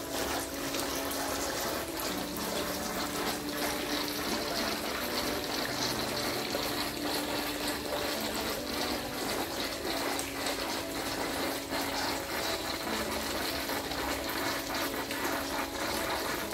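Water pouring steadily from a stone spout fountain into a koi pond, a continuous splashing trickle. The flow is weak, which the owner says needs cleaning out to run stronger.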